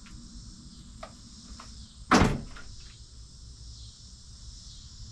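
Crickets or other insects chirring steadily, with a few faint clicks and one loud knock about two seconds in.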